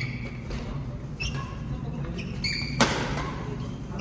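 Badminton rally: several short, high squeaks of court shoes on the floor and the crack of rackets hitting the shuttlecock. The loudest is a sharp hit about three seconds in, with a short echo after it.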